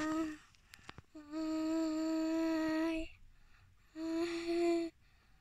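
A girl's voice holding long, steady notes on one pitch, mouth right against the microphone: one note ends just after the start, a long one of about two seconds follows, and a shorter one comes near the end.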